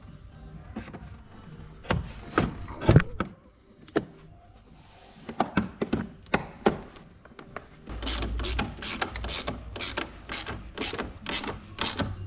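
A few plastic knocks and rattles as an air intake duct is pressed into place, then from about eight seconds in a hand ratchet wrench clicking in even strokes, about three a second.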